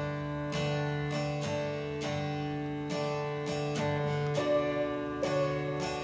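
Background music: an acoustic guitar strumming chords in a steady rhythm.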